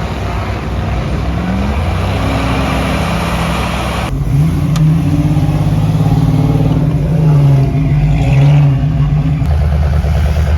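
Off-road vehicle engines revving, their pitch rising and falling, with an abrupt change to a different engine sound about four seconds in.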